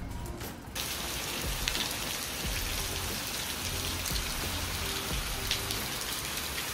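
Rain falling onto wet stone paving and gravel: a steady hiss of drops with scattered splashes, starting suddenly about a second in.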